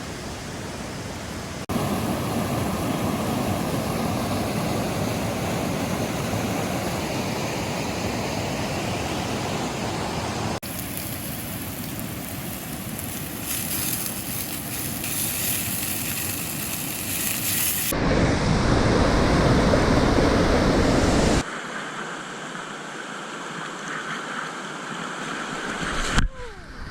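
Rushing river water, a steady noise with no pitch, heard through several short clips: its level and character jump abruptly a few times.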